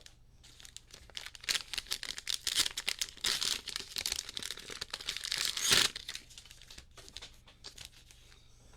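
Plastic trading-card pack wrappers crinkling and tearing as the packs are handled and opened, a dense crackle that peaks just before six seconds in and then thins to scattered faint crackles.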